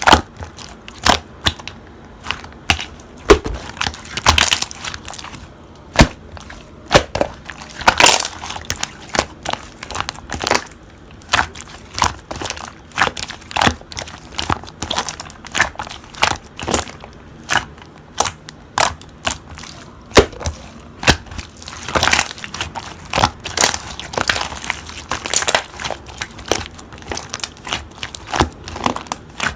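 Slime being pressed and squeezed, giving a dense, irregular run of crackling crunches and pops.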